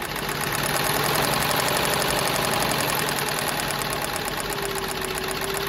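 Consew 2050 long-arm cylinder-bed walking-foot industrial sewing machine running, stitching through a thick canvas strap with a rapid, even mechanical clatter. It gets louder over the first second as it comes up to speed.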